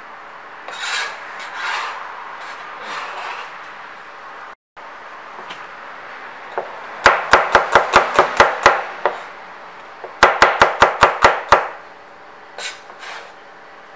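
Chinese cleaver slicing garlic on a plastic chopping board: two quick runs of sharp knocks, about six or seven a second, the first about seven seconds in and the second about three seconds later. Softer scraping and handling sounds come in the first few seconds.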